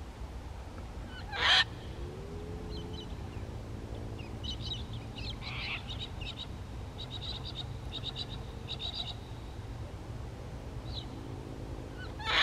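Sulphur-crested cockatoo giving two short, loud, harsh screeches, one about a second and a half in and one near the end. In between come fainter high bird chirps and quick trills over a low steady rumble.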